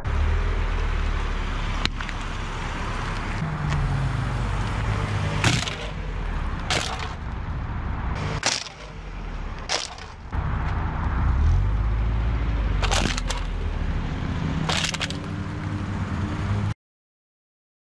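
A car's engine runs with a steady low rumble while its tyres roll over objects on asphalt. About seven sharp cracks and crunches are heard as things are crushed under the wheels, among them a flashlight and an aluminium energy drink can. The sound cuts off suddenly near the end.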